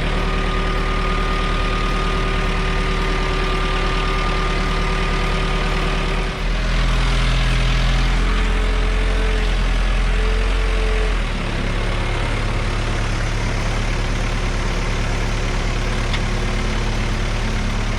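A heavy engine running steadily. About six seconds in its sound shifts to a louder, deeper note for about five seconds, then settles back to a steady run.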